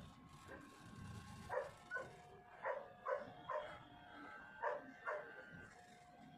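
A dog barking repeatedly, in short separate barks that often come in pairs.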